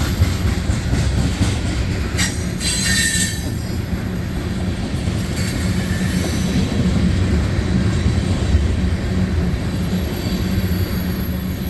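Freight train cars rolling past at track speed, a steady rumble of wheels on rail, with a brief high-pitched wheel squeal about three seconds in.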